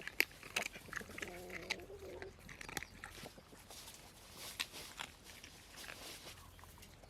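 Eating sounds close to the microphone: a string of sharp mouth clicks and smacks from someone chewing, with a short low hum-like sound about a second in.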